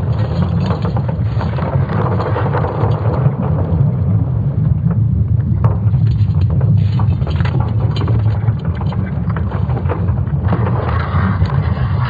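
Sonification of Earth's magnetic field made from ESA Swarm satellite measurements: a deep, continuous rumble with hissing noise and scattered crackles over it. The hiss swells about ten seconds in.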